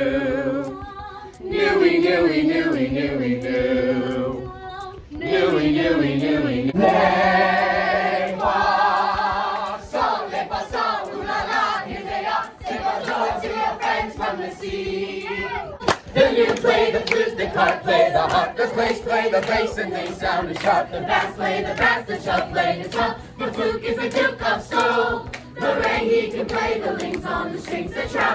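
A large group of young voices singing together in unison, a cast singalong. It begins in short sung phrases with brief breaks, then becomes fuller, continuous group singing from about seven seconds in.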